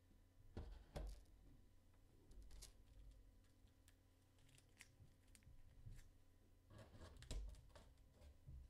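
Near silence with faint off-camera rustling and soft knocks of trading cards and cardboard card boxes being handled, in two brief clusters: about half a second in and again about seven seconds in.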